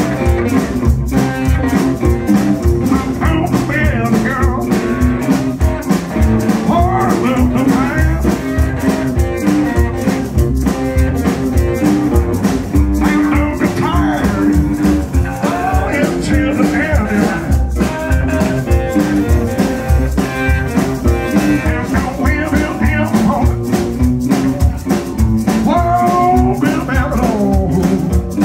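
Live blues band playing with a steady beat: electric guitars over upright bass and drums.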